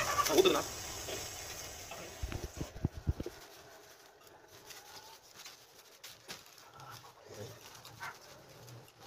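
Gas burner flame hissing steadily as a whole duck is singed over it, with a short loud call about half a second in. The hiss cuts off about three seconds in, leaving only faint soft handling sounds.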